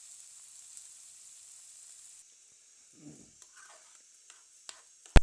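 Food frying in hot oil in a pan: a steady sizzling hiss that drops away about two seconds in, leaving scattered crackles and pops, with a single sharp knock near the end.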